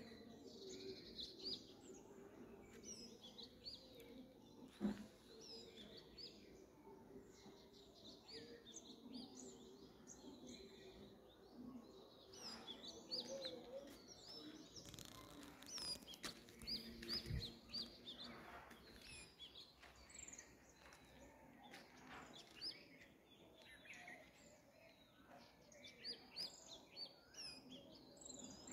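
Small birds chirping and twittering, many short calls overlapping, faint, with a sharp click about five seconds in and another near seventeen seconds.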